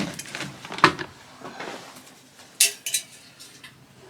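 Rabbit water bowls being handled and set down, clinking and knocking; the water in them is frozen solid. The sharpest knocks come just under a second in and again about two and a half seconds in.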